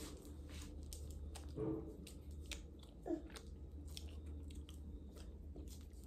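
Faint, irregular crinkling and clicking of a small purple wrapper being torn open and handled, with the hands at the mouth.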